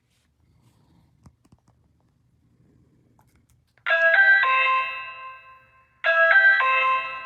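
Electronic doorbell chime sounding twice, about two seconds apart. Each time it plays a quick run of three notes that ring on and fade.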